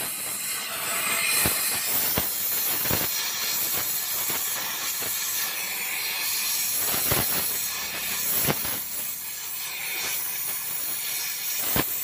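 Gas welding torch hissing steadily as a broken part on a motorcycle is welded with filler rod, with a few sharp clicks scattered through it.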